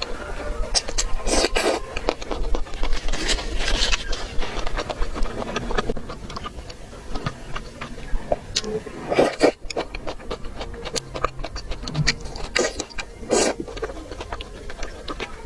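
Close-miked eating of mala xiang guo: chewing and crunching, with many short crisp crackles and a few longer wet bites.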